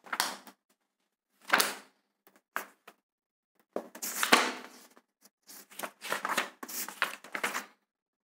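Pages of a book being leafed through by hand: an uneven run of paper rustles and flaps with short pauses between them, the loudest about four seconds in.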